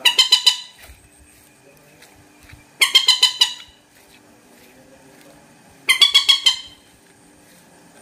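Common moorhen calling: three bursts of about six quick notes each, roughly three seconds apart.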